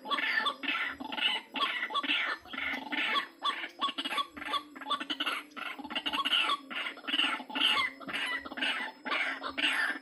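White-breasted waterhen (ruak-ruak) calling: a continuous run of repeated short notes, about three to four a second, over a steady low hum.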